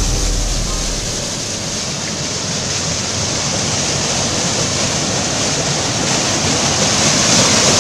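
Small waterfall rushing through a narrow rock channel into a pool, a steady rush that grows louder toward the end.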